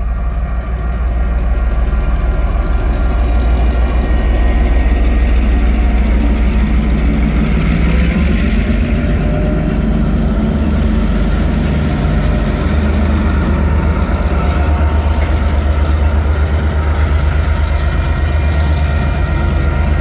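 Two TasRail DQ-class diesel-electric locomotives hauling a loaded coal train, passing close by with a steady, heavy engine rumble. The sound swells as the locomotives go past about eight to nine seconds in, and the coal wagons follow rolling along the rails.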